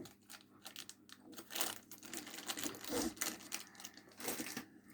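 Faint rustling and crinkling handling noise: a scatter of small scuffs and clicks with a few louder rustles.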